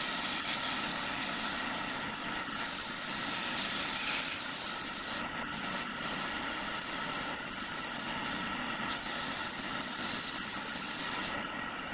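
A machine running steadily with a strong, even hiss and a steady whine.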